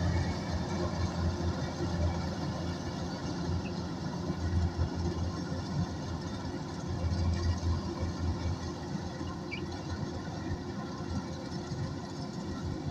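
Kubota DC105X combine harvester running steadily at work in the rice field: a constant low engine hum under an even mechanical whir, with no change in pace.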